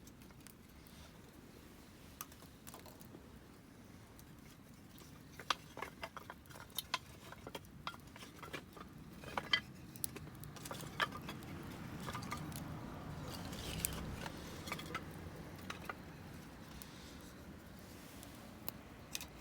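Wood fire crackling: irregular sharp snaps and pops of burning wood, thickest in the first half, over a soft low rush that swells for a few seconds past the middle.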